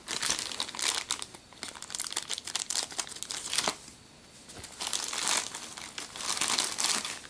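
Plastic packaging crinkling and crackling as it is handled and opened, in two stretches with a short pause between them.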